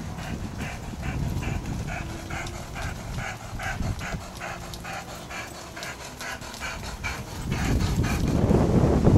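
Rhythmic panting breaths, about two and a half a second, that stop shortly before the end. Wind rumbles on the microphone and grows louder near the end.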